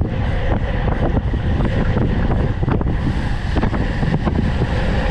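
Heavy wind buffeting the microphone of a camera on a road bike riding at speed: a loud, steady rumble with crackles.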